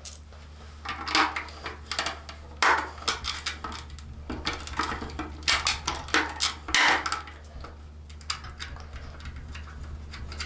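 Hands working behind a motorcycle's plastic rear fender panel, starting a Nylock nut on its bolt: irregular small clicks, knocks and rattles of plastic and metal parts, with several louder knocks scattered through.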